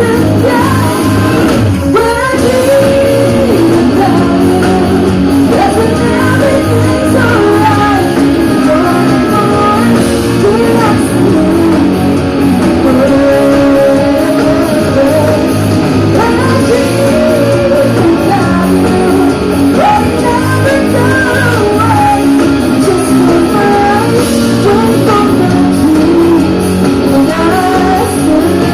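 Loud live pop-rock band music: a singer's voice over electric guitar and bass.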